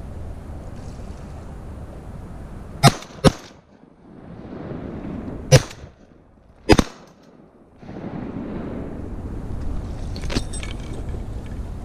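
Four shotgun shots over steady wind noise: two in quick succession about three seconds in, then single shots about two and a half seconds and three and a half seconds later. A fainter crack follows near the end.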